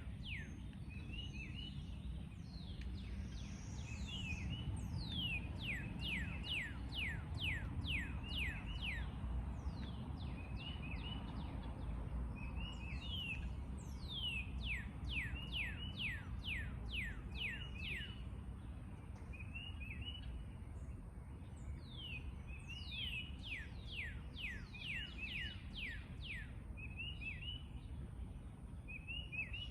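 Backyard songbirds calling: runs of quick, steeply falling whistled notes, several a second, alternating with short paired chirps, over a steady low rumble.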